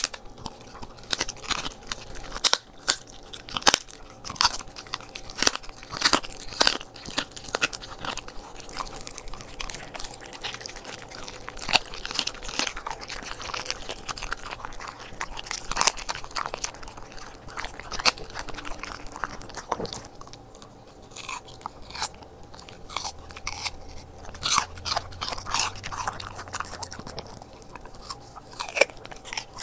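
A corgi crunching and chewing raw duck feet, the small bones cracking in a run of irregular, sharp crunches.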